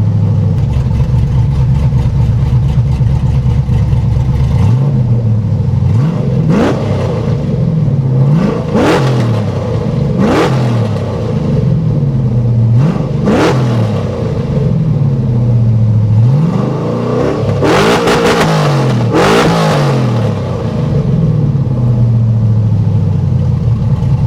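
Straight-piped, cammed LS V8 in a Chevy Silverado running with its idle pitch wandering up and down, blipped in a series of sharp revs. Two louder, harsher revs come near the end.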